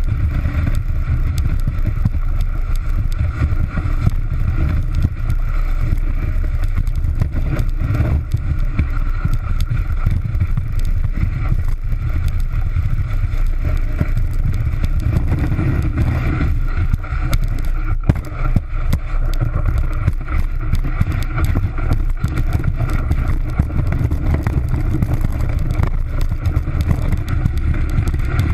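Snowboard sliding over packed snow, heard through a camera mounted on the board: a steady, loud low rumble with scraping and small irregular knocks from the base and edges.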